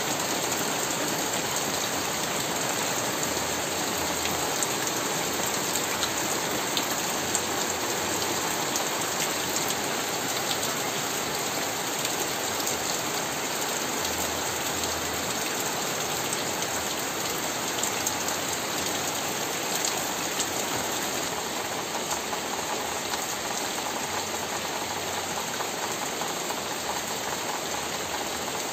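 Steady rain falling on foliage, sheds and roofs, with scattered drops striking close by; near the end, water runs off the eaves of a brick house.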